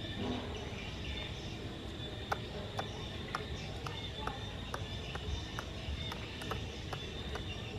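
Baby macaque sucking milk from a small feeding bottle: a regular run of short wet clicks, about two a second, starting a couple of seconds in, over a steady outdoor hiss.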